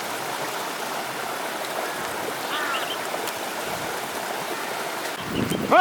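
Steady rushing of a flowing stream. A few faint short calls come about halfway, and a loud rising cry near the end cuts off abruptly.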